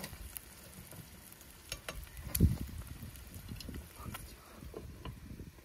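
Eggs frying in a pan, sizzling with scattered crackles and pops. One heavy thump about two and a half seconds in.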